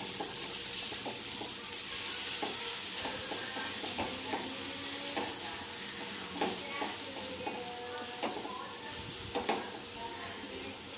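Paneer bhurji sizzling steadily in a pan over a lowered gas flame while a wooden spatula stirs it, with irregular scrapes and knocks of the spatula against the pan.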